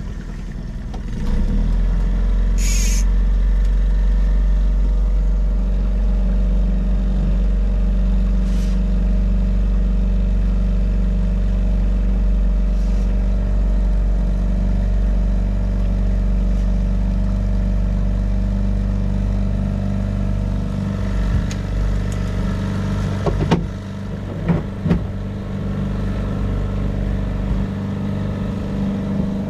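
Boat motor running steadily, a low even hum that grows louder about a second in. A few sharp knocks sound near the end.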